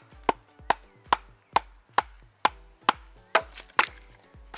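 Batoning: repeated baton strikes on the spine of a full-tang Wolfgangs W1 outdoor knife (3 mm 440C blade), driving it down through a log to split it. About ten sharp knocks at a little over two a second, the loudest near the end just before they stop as the log splits.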